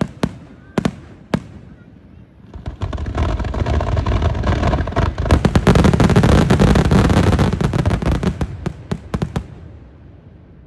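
Fireworks going off: a few separate sharp bangs, then a dense barrage of crackling bursts that builds for several seconds and fades away near the end.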